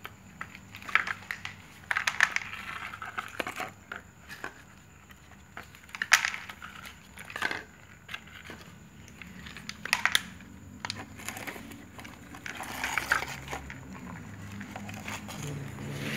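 Cats crunching dry kibble, with irregular sharp crunches and clicks of pellets on the tray.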